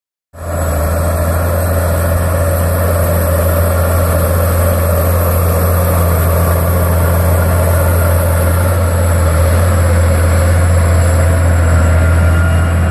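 Challenger tractor's diesel engine running steadily under load while pulling a 12-furrow plough, a deep even hum.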